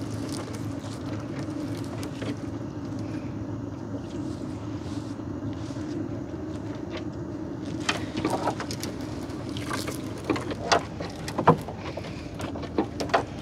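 A small engine running steadily with a low drone, while a gill net is hauled by hand over the side of a wooden boat. In the second half, sharp knocks and clicks from the net and boat rise over the drone.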